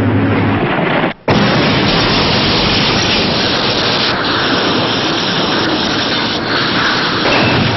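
Loud, continuous rushing noise of a truck crash and explosion in a film soundtrack, broken by a split second of silence about a second in.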